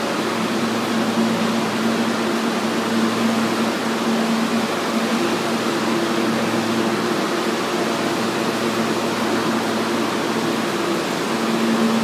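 Steady drone and hiss of a New York subway station corridor, a constant mechanical hum under it, with a second, higher hum joining about five seconds in.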